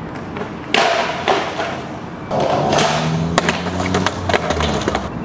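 Skateboard on concrete during a bail: two hard slams about a second in, then the wheels rolling with the board clattering several times before it stops near the end.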